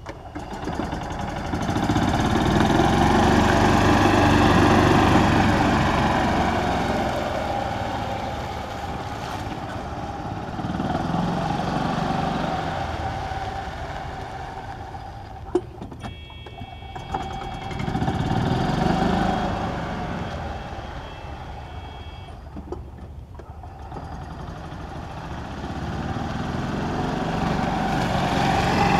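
Club Car DS golf cart's single-cylinder gas engine running as the cart pulls away and drives around, growing louder and fainter several times as it moves off and comes back. A sharp click about halfway through.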